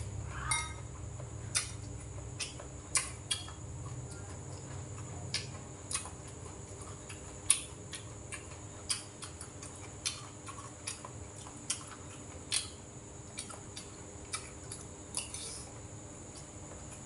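Eating sounds: chewing with small, irregular mouth clicks and smacks, and now and then chopsticks and a spoon tapping a rice bowl and dishes. A steady low hum runs underneath.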